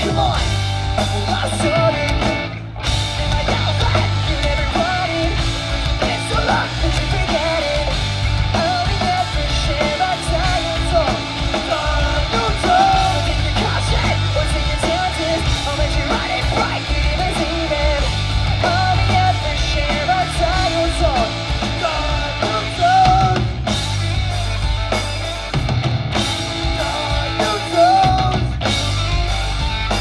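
Pop-punk band playing live: electric guitars, bass guitar and drum kit with a male lead singer. The music stops for a moment about two and a half seconds in.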